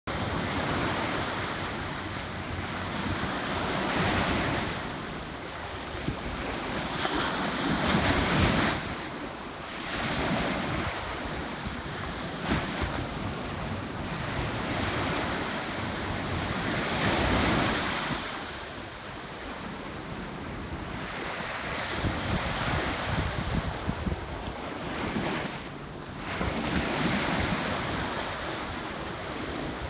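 Small waves breaking and washing over shallow sea water, a hissing wash that swells and fades every several seconds, with wind rumbling on the microphone.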